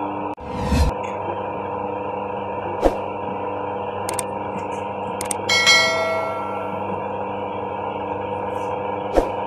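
Macaroni-making machine humming steadily, with a few sharp metal knocks and one ringing metallic clang about five and a half seconds in.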